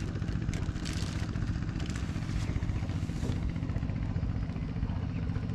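An engine runs steadily with a low, even hum. In the first few seconds a plastic bag crinkles several times as it is handled.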